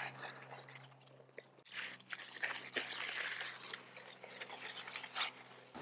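Cucumber leaves and vines rustling and crunching in irregular bursts as a hand pushes through the plant to pull cucumbers off.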